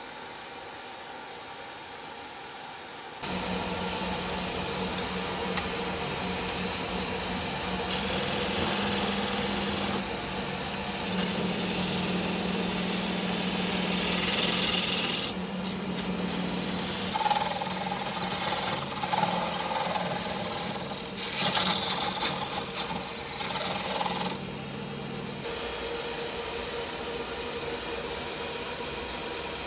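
A power tool starts up about three seconds in and runs steadily with a humming tone. Over that hum come stretches of louder, uneven grinding noise as work is pressed against it.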